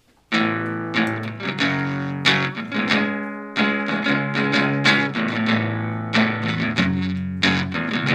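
A band's guitar intro kicks in about a third of a second in: repeated strummed guitar chords over held low notes, with no singing yet.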